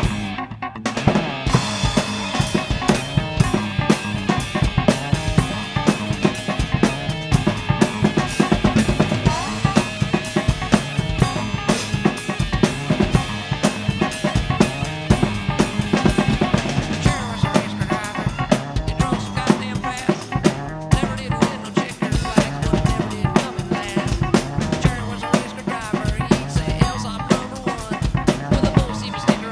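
Acoustic drum kit played fast and busy, with kick drum, snare and cymbals, along to a rock song.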